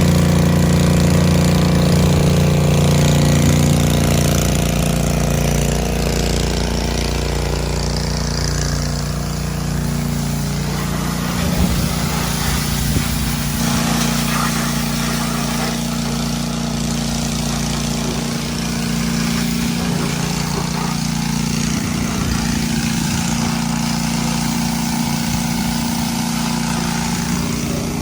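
Small gasoline engine running steadily at a constant speed, with water hissing from a large hose. The engine's note shifts a little about five seconds in.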